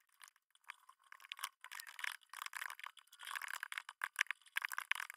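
Fast typing on a computer keyboard: a quick run of key clicks, a few scattered at first, then a dense stream from about a second in.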